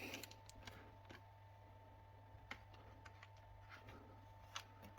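Near silence with a few faint, scattered clicks and taps of hard plastic parts being handled on a Rowenta Flex cordless vacuum, over a low steady hum.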